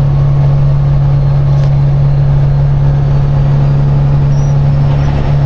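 Caterpillar diesel engine of a Peterbilt truck running steadily at cruising speed, a constant low drone with no change in pitch.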